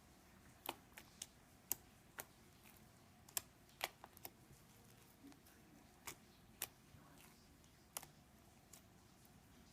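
Slime with little balls of modeling clay mixed in, being kneaded and pressed: faint, irregular sharp clicks and pops, about a dozen spread over several seconds.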